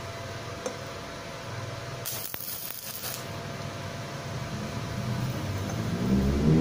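Stick welding arc struck briefly: a hissing, crackling burst lasting about a second, around two seconds in, over a low steady hum.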